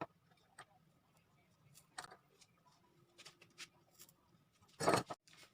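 Faint scattered ticks and small taps of wires and soldering tools being handled during wire tinning, with one short, louder burst of noise about five seconds in.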